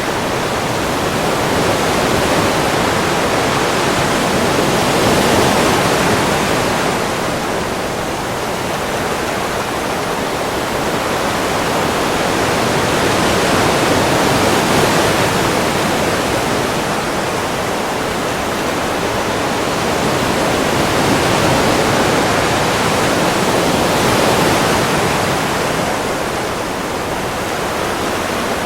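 Ocean surf: a continuous rushing wash of waves that swells and eases slowly, cresting every seven to nine seconds.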